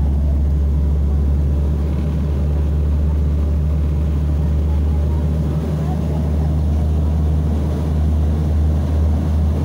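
Turboprop airliner's engines and propellers droning steadily, heard from inside the cabin on landing approach with the landing gear down; a deep even hum with a slight beating wobble near the end.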